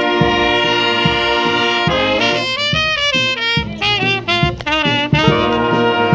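Street brass band of saxophones, trumpets and trombones playing over a steady drum beat: a held chord, then a quick phrase of shaking, moving notes in the middle, settling back onto a held chord near the end.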